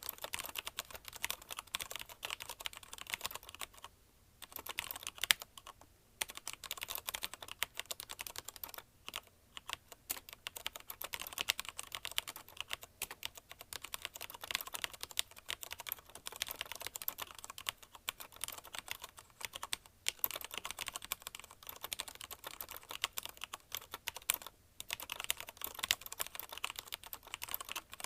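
Fast typing on a CM Storm Quick Fire TK mechanical keyboard with Cherry MX Red linear switches: a dense stream of key clacks, broken by brief pauses about four, six, nine and twenty-four seconds in.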